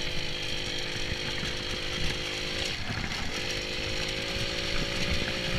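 Small moped engine running steadily under way, its pitch dipping briefly about halfway through before picking back up. Wind buffets the rider's microphone underneath.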